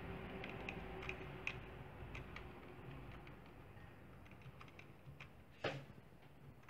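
Keys on a computer keyboard pressed one at a time, a dozen or so irregular light clicks, then a single louder knock near the end.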